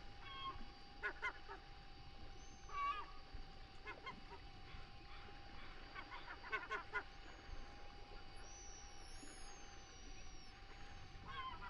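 Birds calling: short calls in clusters at irregular intervals, with thin, high whistled notes that slide in pitch during the middle and later part, over a steady hum.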